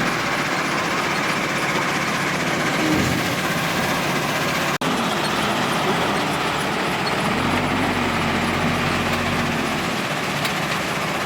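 Heavy earthmoving diesel engine running, with a dense mechanical rattle over it; the engine note rises briefly about three seconds in and again for a couple of seconds past the middle as it is worked harder.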